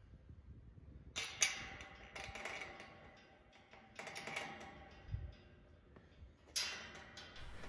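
Retriever Lodge kennel door latch clicking and the metal gate rattling as the latch is worked by hand, in a handful of short, faint bursts of clicks.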